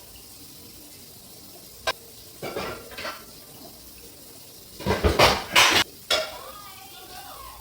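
Kitchenware clattering: pots, pans and utensils being handled and set down. A sharp clink comes about two seconds in, then a few knocks, then the loudest run of clatter about five seconds in and one more knock just after six seconds.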